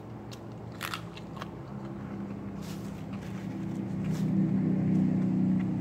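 A motor vehicle's engine hum, growing louder as it approaches and loudest near the end. Early on, a couple of crisp bites into a green chili pepper.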